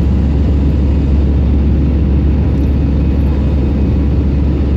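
Steady loud cabin roar of an Airbus A320 under way, engine and airflow noise with a heavy low rumble that holds even throughout.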